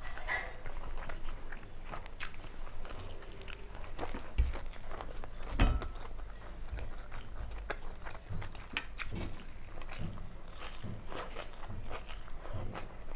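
Close-up eating sounds: a person chewing food, with many small wet mouth clicks and smacks at an irregular pace. Two louder low thumps come about four and a half seconds in and again a second later.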